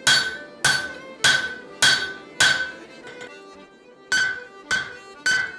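Cross-peen hammer blows on a hot steel axe billet against the anvil, each strike ringing and dying away. Five blows come in a steady rhythm, then a pause of over a second, then three more, as the transition from eye to blade is thinned by hand.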